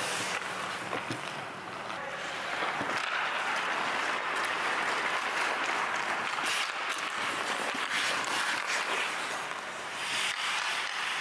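Hockey skate blades scraping and carving across the ice, the hiss swelling and fading as the skater strides and turns, with a few faint clicks.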